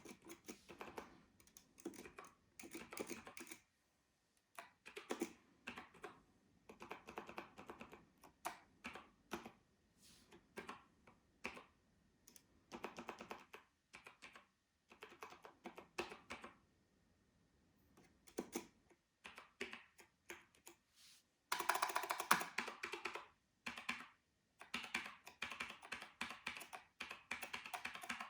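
Apple Adjustable Keyboard being typed on in short runs of key clicks with brief pauses, the keys tried one after another to test the freshly cleaned keyboard. A denser, louder flurry of keystrokes comes about three-quarters of the way through.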